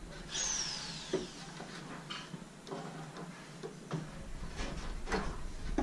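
Faint knocks and scrapes of a pine deck plank being handled and shifted into its notches. A short high squeak falls in pitch about half a second in.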